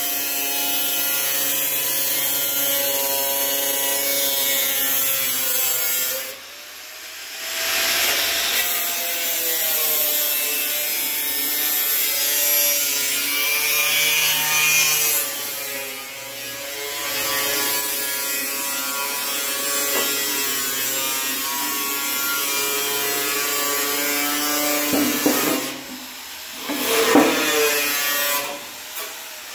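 DeWalt angle grinder with a cut-off wheel slicing through the steel quarter-panel fin: a steady motor whine with a hissing cut, easing off around six seconds in and again around sixteen seconds. A few sharp knocks near the end.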